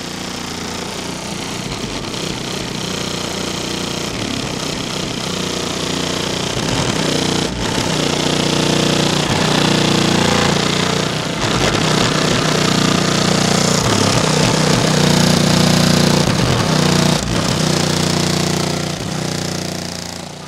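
Competition car-audio system of eight CT Sounds Exo 12-inch subwoofers on four B2 Audio SLD 5k amplifiers playing bass-heavy music at very high level, heard from just outside the vehicle as a heavy, distorted buzz. It swells louder through the middle and eases off near the end.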